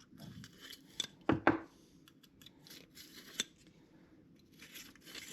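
Chainsaw guide bar being cleaned by hand: scattered short scrapes and clicks against the metal bar, with a soft rubbing sound near the end.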